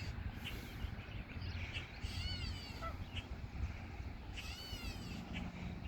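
A bird calling twice, about two seconds apart, each call a drawn-out cry that rises and then falls in pitch, over a steady low rumble.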